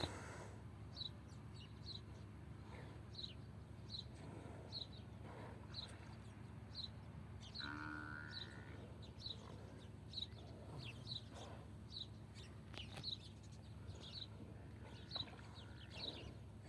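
A bird calling over and over, a short high note repeated about twice a second, faint. About halfway a brief animal call rings out once, over a faint low hum.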